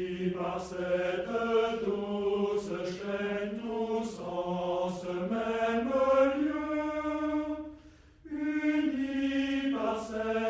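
Voices singing a slow hymn, held notes moving slowly in pitch, with a short break for breath about eight seconds in.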